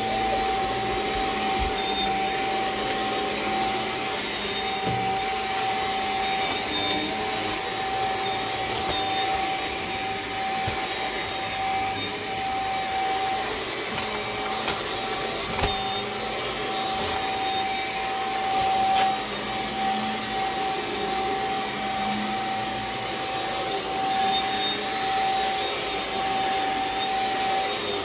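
Stick vacuum running steadily while being pushed over carpet: a steady motor whine over a rushing airflow noise, with one faint click about halfway through.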